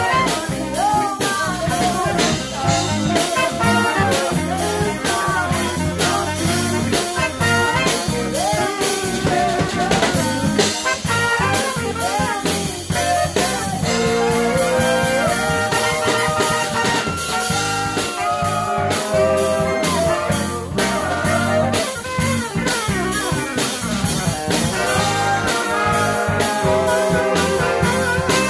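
Live band playing, led by a section of several saxophones playing melodic lines together over a drum kit.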